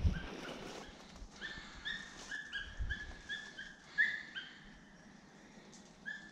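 Hunting dog giving tongue while working a rabbit: a run of short, high yelps, about three a second, then one more yelp near the end.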